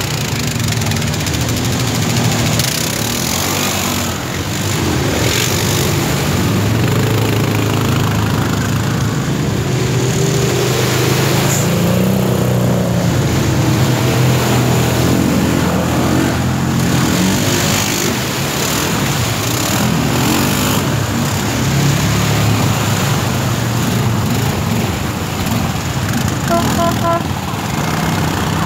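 Several quad bike engines running and revving, their pitch rising and falling, as the ATVs wade through a fast-flowing river, over the rush of water.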